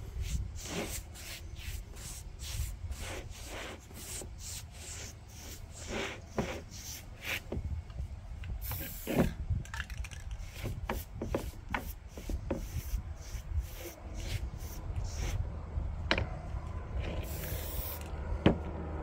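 Short, repeated scrubbing strokes of a bristle paint brush over a wooden board. Twice the spray-paint can gives a brief hiss: once about halfway through, and again for about a second near the end.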